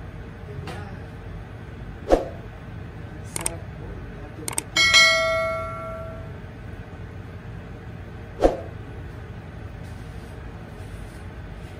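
Subscribe-button sound effect: a few sharp clicks, then a bell ding about five seconds in that rings out for over a second, and one more click later. Under it, a steady low rumble from the gas burner under a boiling pot.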